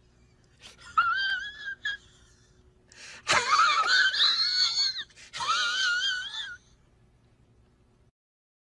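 A sound effect of high, wavering, wail-like cries, three in a row, the middle and longest one about two seconds and opening with a sharp click.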